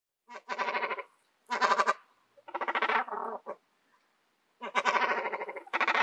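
A gull calling: a series of about five harsh, rasping calls, each under a second long, with short pauses between them.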